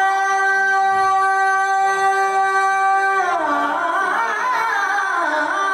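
A boy's voice singing a naat through a microphone: he holds one long steady note, then about three seconds in breaks into a wavering, ornamented melodic run.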